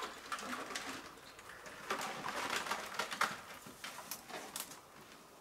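Scattered light clicks, knocks and rustles of a bundle of plastic bottle fish traps bumping together as they are carried down the rocks.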